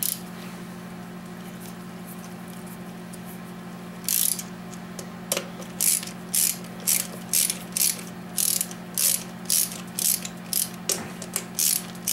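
Hand ratchet wrench clicking on its return strokes as bolts are run down. The clicking starts about four seconds in and goes at about two strokes a second, over a steady low hum.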